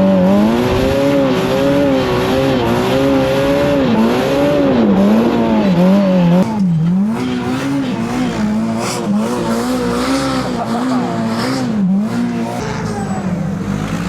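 Side-by-side UTV engine revving hard, its pitch rising and falling about once a second as the driver works the throttle to power through deep snow. About six and a half seconds in the sound cuts abruptly to a similar revving, which settles to a steadier pitch near the end.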